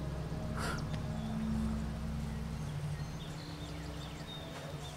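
Low, steady droning tones of an ominous film underscore. A short breathy rustle comes about half a second in, and faint high chirps come near the end as the drone fades.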